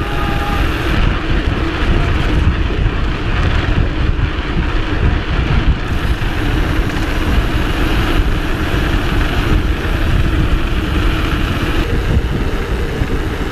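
Steady, loud wind rush on the handlebar camera's microphone while riding a mountain bike fast on asphalt, with the steady hum of knobby Maxxis Minion DHR II tyres rolling on the road underneath.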